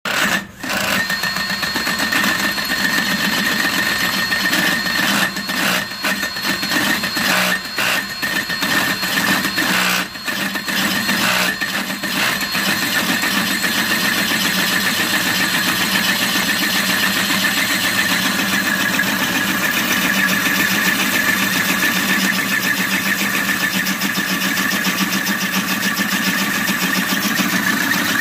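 Electric drill running a 2-1/8-inch hole saw that is cutting through the steel where the shock mounted: a steady motor whine with the teeth grinding on metal. It starts at once, falters briefly several times in the first dozen seconds, then runs evenly.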